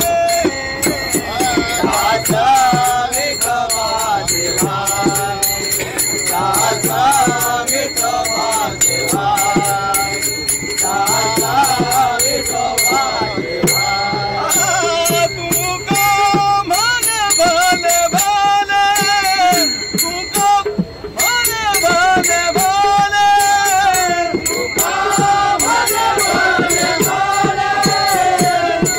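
A group of men singing a Marathi devotional abhang bhajan together, with a steady beat of small hand cymbals (taal) clashing and ringing under the voices.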